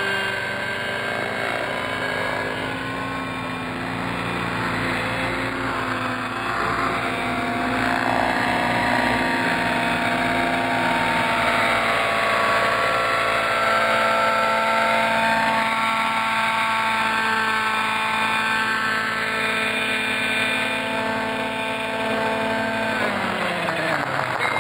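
Radio-controlled model helicopters hovering, their motors and rotors giving a steady whine made of several tones that drift a little up and down in pitch.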